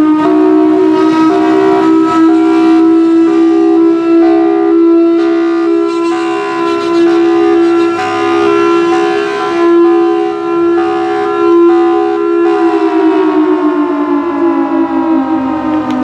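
Federal Signal Thunderbolt 1003 rotating fire siren sounding its hi-lo fire signal, alternating between two pitches. About three-quarters of the way through the signal ends and the siren winds down, its pitch sliding steadily lower as it fades.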